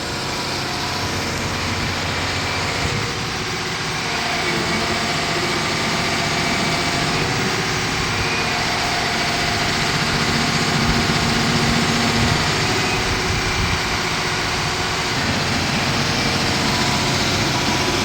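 John Deere 350G excavator's diesel engine running steadily, growing a little louder about four seconds in.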